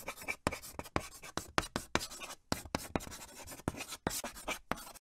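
Chalk scratching on asphalt in quick, irregular strokes, the sound of words being written out.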